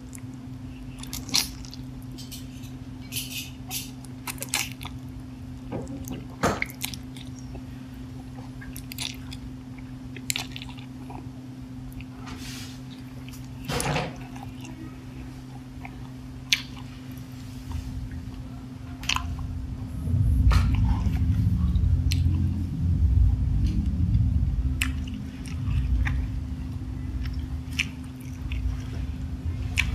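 Close-miked eating of spicy instant noodles: wet chewing with scattered sharp clicks and smacks over a steady low hum. From about twenty seconds in, a louder low rumbling chewing sound takes over.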